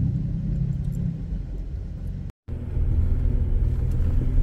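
Off-road vehicle engine running at low speed with a low, steady rumble. It drops out for a moment a little past halfway and comes back louder.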